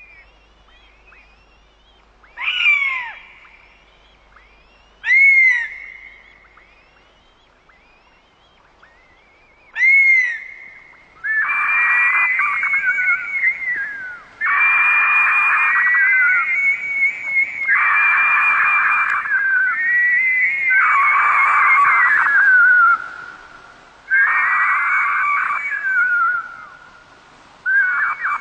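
Birds of prey calling. First come three short, high, downslurred cries a few seconds apart, then about eleven seconds in a run of long, loud, high calls begins, each lasting a few seconds and trailing off in a falling slur.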